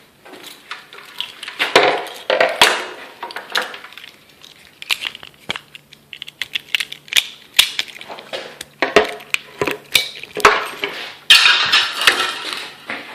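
Small metal objects clinking and clattering as they are handled, in a run of sharp clicks and rattles with a few louder clanks. A faint steady low hum joins about five seconds in.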